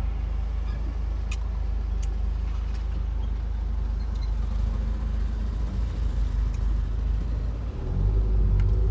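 Low rumble of a Volkswagen Golf's engine and road noise heard from inside the cabin as the car drives slowly, with a few faint clicks. Near the end it grows louder and the engine note becomes steadier.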